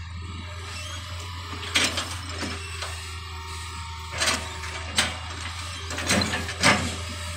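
Hitachi excavator working: a steady engine drone with about six sharp metallic clanks, the loudest about two seconds in and near the end.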